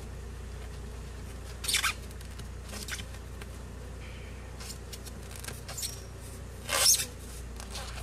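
Wooden hive frame scraping and rubbing against the sides of a polystyrene beehive as it is worked loose, in a few short scrapes with the loudest near the end, over a steady low hum.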